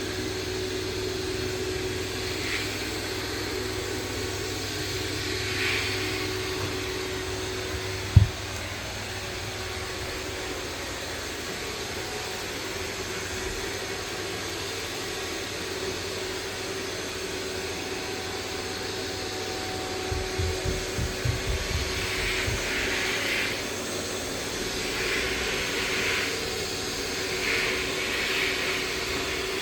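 iRobot Roomba Plus 405 robot vacuum running steadily, a motor hum with a held tone, with several short swishing surges. A single sharp thump comes about eight seconds in, and a quick run of low knocks around twenty seconds in.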